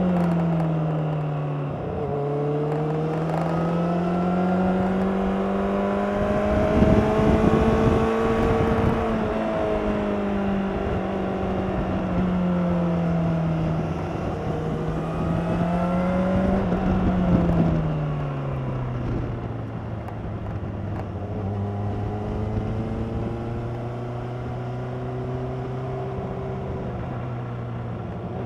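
2016 Honda CBR600RR's inline-four engine on its stock exhaust while riding. The revs dip about two seconds in, climb and hold, ease off and rise again, then drop at about eighteen seconds to a lower, steady running note.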